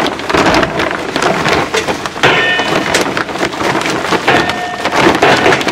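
Charcoal briquettes being poured and tipped into the Weber Summit Kamado's firebox: a dense, irregular clatter of many small knocks, with a few brief metallic rings partway through.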